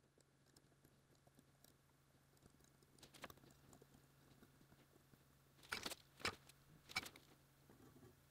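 Near silence with a faint low hum, broken by a few small clicks and ticks of a thin wire being handled against a metal D-sub connector in a helping-hands clamp. The clearest three come close together past the middle.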